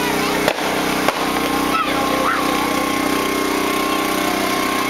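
An engine running at a steady speed, with faint crowd voices over it. Two sharp pops come within the first second or so.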